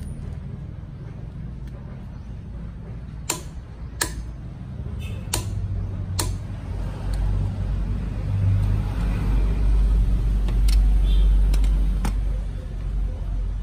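Click-type torque wrench set to 100 ft-lbs, pulled on a car wheel's lug nut: sharp clicks as it breaks over at the set torque, four of them in the first half and a few more clinks near the end, over a low rumble that swells in the second half.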